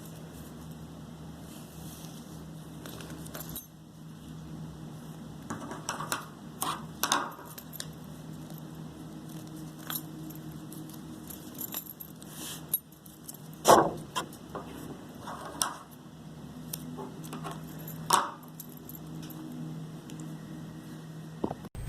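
Handling sounds of a twig frame being wrapped with yarn: small wooden clicks, taps and rustles at irregular intervals, two louder knocks in the second half, over a steady low hum.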